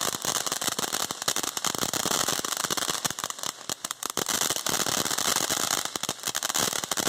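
Consumer ground firework fountain spraying with a loud, dense crackle of rapid pops over a steady hiss.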